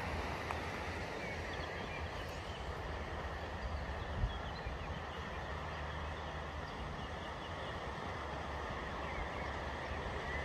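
Outdoor ambience: a steady low rumble with faint, scattered high chirps and a single thump about four seconds in.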